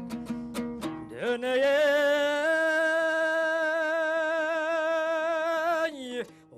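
Kazakh folk song: plucked-string accompaniment for about a second, then a male singer glides up into one long, wavering held note, steps up partway through, and lets it fall away near the end.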